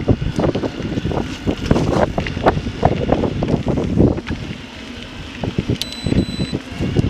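Wind buffeting the microphone over the rumble of e-bike tyres on a rough dirt trail, with frequent knocks and rattles as the bike jolts over bumps. A brief high tone sounds about six seconds in.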